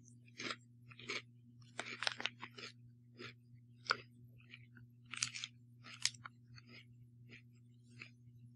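A person chewing a mouthful of Lay's kettle-cooked potato chips: a string of irregular crisp crunches, thinning out near the end. A faint steady hum runs underneath.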